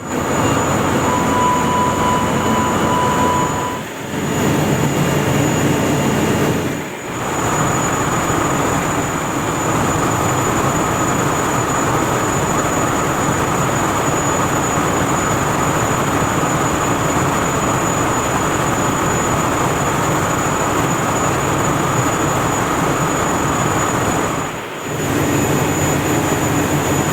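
Boiler plant running with a loud, steady roar, with a pulsing alarm tone for the first few seconds that the title identifies as a boiler misfire alarm. The roar dips briefly three times.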